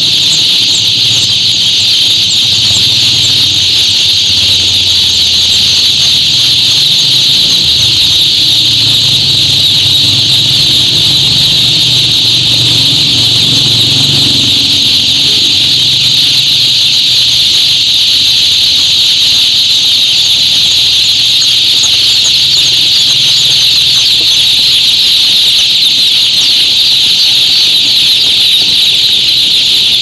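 Massed peeping of hundreds of day-old male chicks packed in ventilated cardboard chick boxes: a dense, continuous high chirping with no let-up, over a low steady hum.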